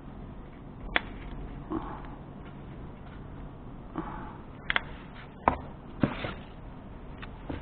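Twigs and kindling burning in a small wood stove, crackling with several sharp, irregularly spaced pops over a low steady background.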